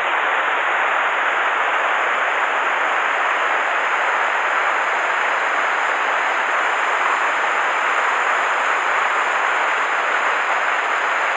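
Steady rush of a rocky mountain stream running over rapids and small cascades, an even hiss without breaks.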